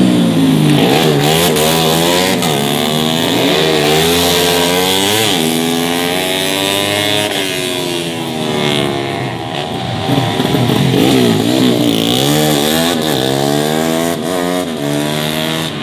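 Several tuned four-stroke 150 cc underbone racing motorcycles running hard, their engines overlapping and rising and falling in pitch again and again through revving and gear changes.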